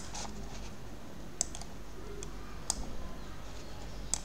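A few sharp computer mouse clicks, spaced a second or so apart with a quick cluster near the middle, over a faint steady low hum.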